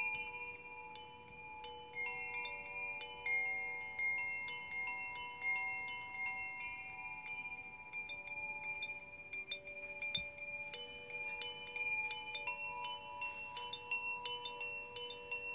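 Chimes ringing gently and continuously, with many overlapping, long-sustained metallic notes struck a few times a second.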